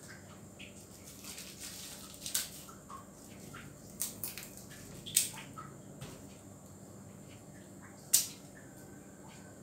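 Light clicks and taps of hand food preparation with a small kitchen knife, with four sharper clicks spread a second or more apart.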